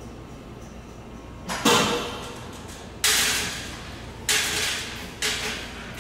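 Four sharp bursts of compressed air hissing from a 205 series electric train's pneumatic equipment during start-up, as its pantograph is raised. Each hiss starts suddenly and fades over about a second.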